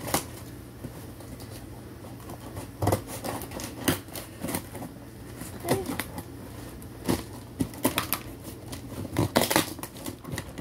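Scissors slitting the packing tape along the top of a cardboard box, with irregular scrapes, snips and knocks of the blade and hands against the cardboard; the box flaps are pulled open near the end.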